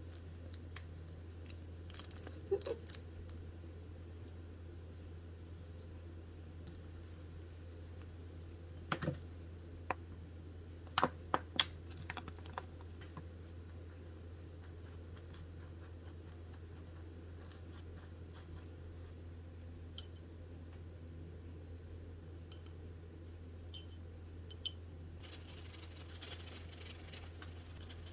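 Faint clicks and taps of food preparation on a wooden cutting board: a squeeze bottle being pressed and a knife spreading sauce on bread. Near the end comes a dense crackling rustle as shredded cheese is shaken out of a plastic bag. A low steady hum runs underneath.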